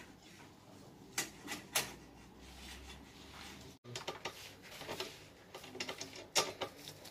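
Light, irregular clicks and taps of a metal-tube baby cot's frame being handled during assembly, metal parts knocking against each other.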